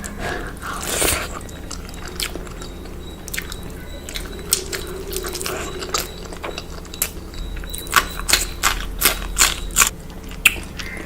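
Close-miked eating: crunchy bites and chewing, with sharp crunches coming in a quick regular run of about three a second near the end.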